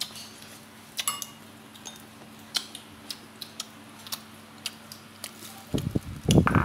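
Light scattered clicks and taps of chopsticks and dishes over a steady low hum. Near the end, louder handling noise comes close by as bread is picked up and torn.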